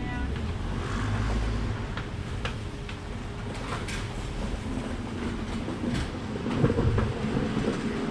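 Steady low rumble of background noise with a few scattered clicks and knocks.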